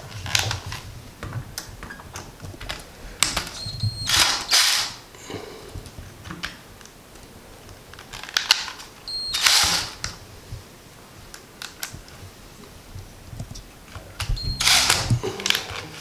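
DeWalt cordless drill/driver driving drywall screws into a ceiling, in three short runs of about half a second, each starting with a brief high whine. Small clicks and handling knocks come between the runs.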